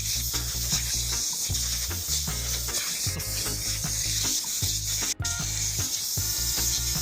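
Compressed-air blow gun hissing steadily as it blows dirt off a lawn mower, cutting out for an instant about five seconds in. Background music with a steady bass line runs underneath.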